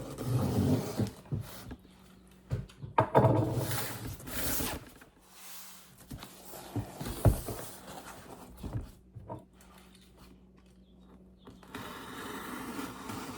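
A cardboard shipping box being opened and handled by hand: irregular scraping and rustling with a few sharp clicks and knocks, and a steadier rustle starting near the end.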